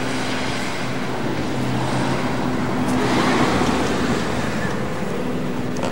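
A car passing on the street, its noise swelling to a peak about three seconds in and then fading, over a steady low hum.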